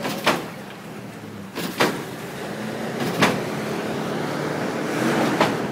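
Hydraulic lowrider hopping, four sharp bangs about a second and a half apart as it slams back down, over a steady vehicle engine hum.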